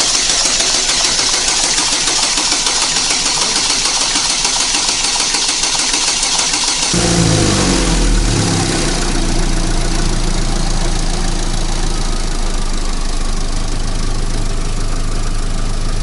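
Freshly rebuilt Chevrolet Cruze petrol engine, with its broken piston replaced, being started. A steady hiss for about seven seconds, then the engine catches, flares up in revs and settles into a steady idle.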